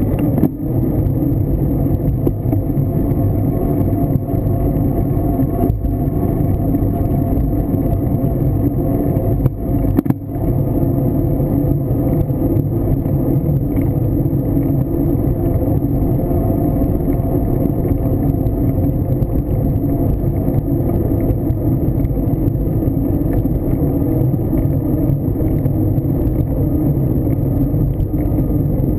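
Steady rumble of wind buffeting a bicycle-mounted camera's microphone, mixed with the tyre rolling on asphalt, with a couple of brief jolts about half a second and about ten seconds in.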